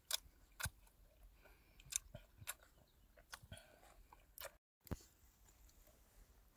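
A person chewing and biting crunchy food, quietly, with about half a dozen sharp crunches spread out at irregular moments.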